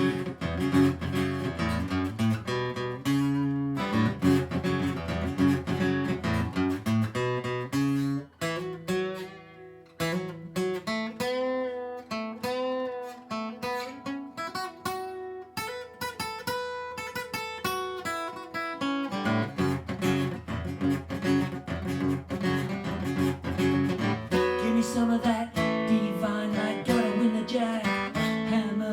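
Instrumental break of a song on acoustic guitar, strummed and picked; the playing thins out and goes quiet for a moment about eight seconds in, then picks up again about two seconds later.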